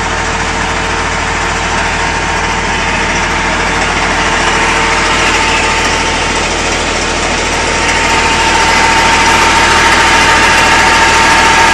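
Tajfun RCA 400 Joy firewood saw-splitter running with the tractor that drives it: a steady mechanical drone with a thin steady whine, getting somewhat louder about eight seconds in.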